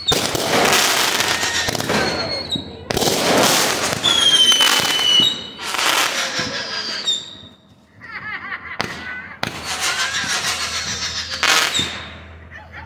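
Aerial fireworks going off in rapid volleys of bursts and crackle, with a few falling whistles. There is a brief lull about two-thirds of the way through, then more bursts.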